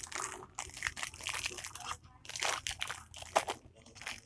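Packaging rustling and crinkling in irregular bursts as parts of an amplifier kit are handled and searched through.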